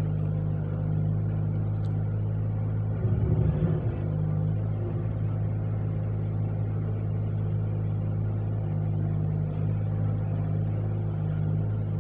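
Steady low droning hum with a brief louder rumble about three seconds in.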